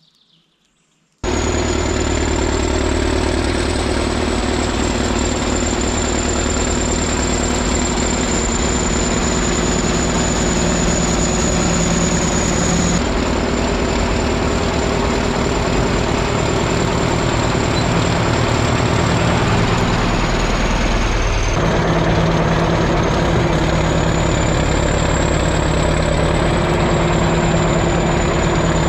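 Bulldozer's diesel engine running steadily as the machine works across weedy ground, with a high thin whine over the engine. It starts abruptly about a second in, and the engine note shifts about twelve seconds in and again around twenty-one seconds.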